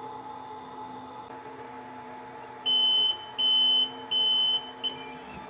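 ZM-R7220A optical-alignment rework station's buzzer beeping three times, each beep about half a second long, then a short blip, over a steady hum: the signal that the soldering cycle of the mount procedure has finished.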